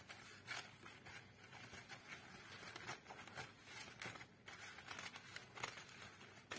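Faint crinkling and snipping of crepe paper being handled and cut with scissors, in short, irregularly spaced rustles.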